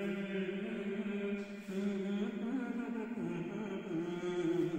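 A man singing unaccompanied, holding long, drawn-out notes that change pitch a couple of times between the lines of a Malayalam song.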